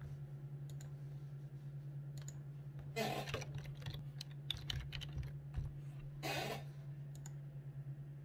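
Light clicks and handling noises at a computer, with two short rustles about three and six seconds in, over a steady low hum.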